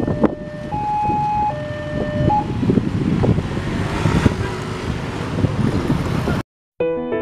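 Railway level-crossing warning signal sounding in alternating two-note tones for the first couple of seconds, over the engines of motorcycles and a truck moving across the crossing. About six seconds in the sound cuts out, and after a brief silence music begins.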